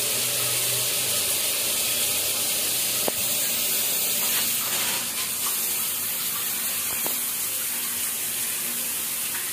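Shower water running steadily, a rain shower head and wall-mounted body jets spraying onto tiled walls, with two light clicks about three and seven seconds in.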